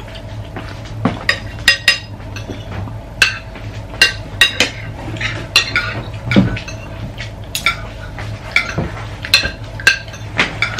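Spoons and forks clinking and scraping on ceramic plates as two people eat: many sharp, irregular clinks over a steady low hum.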